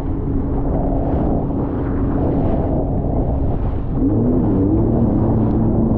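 Jet ski engine running at speed, with wind buffeting the microphone and water rushing. The engine note holds steady, then rises and falls a few times as the throttle changes over the waves, about two-thirds of the way in.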